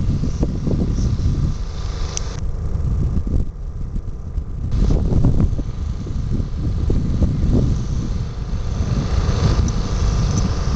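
Wind buffeting the camera microphone: a loud, gusty low rumble that eases briefly about three seconds in.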